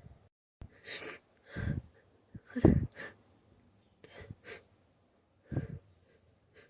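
A person's sneezing fit: a run of short, stifled sneezes and quick breaths, about eight brief bursts, the loudest a little under three seconds in.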